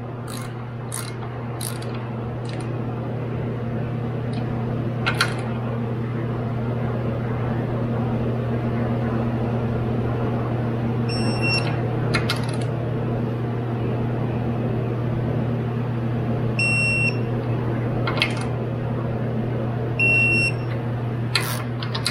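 Socket ratchet clicking through a few short strokes as the thermostat housing bolts on a Subaru EJ25 boxer engine are snugged down, over a steady low hum. Several short high-pitched beeps sound in the second half.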